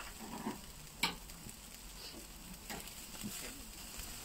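Chicken sizzling on a charcoal grill, a faint steady hiss. About a second in, metal tongs give one sharp click, with a few lighter knocks later as the meat is turned.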